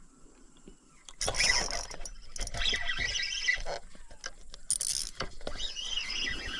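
Spinning reel being cranked, its gears whirring and clicking unevenly, starting about a second in, while a fish is played on a light spinning rod.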